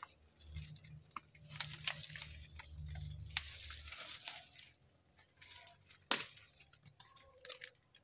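Leaves and twigs rustling and crackling as someone pushes through damp undergrowth, with low handling rumble in the first half and a sharp snap about six seconds in.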